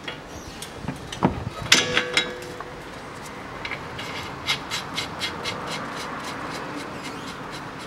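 Hand tools working the strut-to-knuckle bolts on a car's front suspension: a ringing metal clank about two seconds in, then a ratchet clicking about four times a second.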